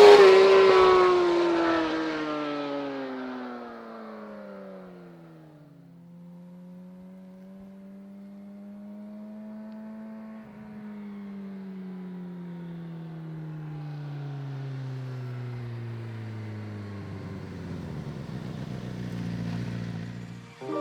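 A 2006 Suzuki GSX-R 750 inline-four on its stock exhaust, passing at speed just as the sound opens; its note falls and fades over about five seconds. It is heard again from farther off, with a pitch that rises slightly until about ten seconds in and then falls slowly to the end.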